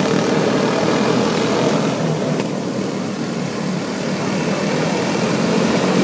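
Quarter midget race car engines running together as the cars lap the track, a steady buzzing drone that fades a little midway and then builds again.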